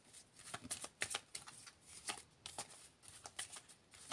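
A deck of cards being shuffled by hand: a quiet run of irregular short flicks and snaps of card on card.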